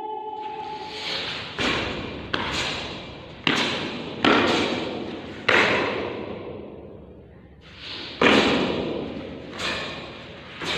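Sharp snapping and thudding sounds of a karate kata's techniques, about seven of them at uneven intervals with a pause in the middle, each ringing out in the echo of a large hall.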